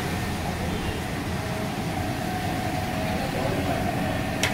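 Oil sizzling as battered fish deep-fries in a large karahi, over a steady low rumble. A sharp metallic clink comes near the end.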